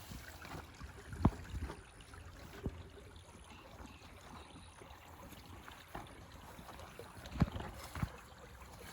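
Running river water, a steady wash, with a few sharp knocks, the loudest about a second in and again near the end.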